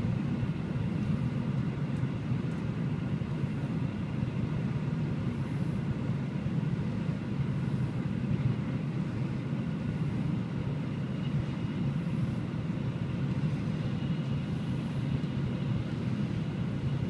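Steady low rumble of a Shinkansen bullet train running at about 285 km/h, heard inside the passenger cabin.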